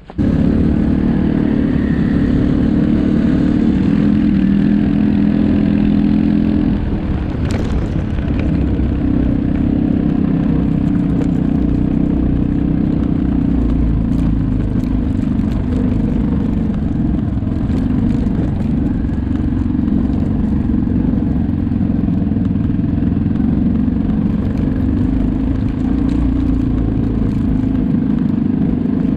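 ATV engine running steadily under way; its note shifts and the level dips slightly about seven seconds in, with a single knock just after.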